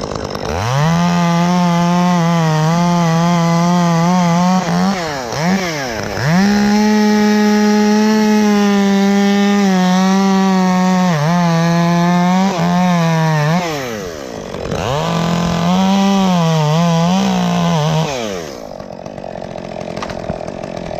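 Two-stroke chainsaw running at high revs and cutting through dead wood, its pitch sagging and recovering several times under load. It drops away to a lower, quieter running near the end.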